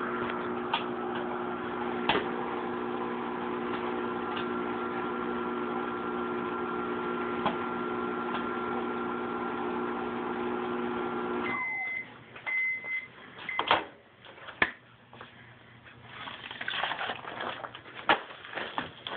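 Whirlpool over-the-range microwave oven running with a steady hum while popcorn pops only now and then, near the end of popping. About eleven seconds in the oven shuts off, the hum winding down, and it beeps three times to signal the cycle is done; then come a couple of sharp clicks and handling rustle.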